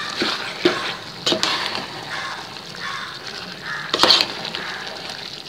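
Perforated steel spatula stirring chicken liver and gizzard with masala paste in a sizzling pot, with a few sharp scrapes and knocks of metal on the pot, the loudest about four seconds in.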